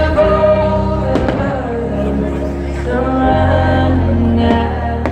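Music with long held notes over a deep sustained bass, with a single sharp crack about a second in.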